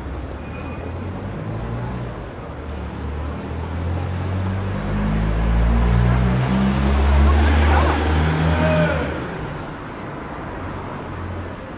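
A motor vehicle passing close by in street traffic, its engine growing louder, loudest a little past the middle, then fading away.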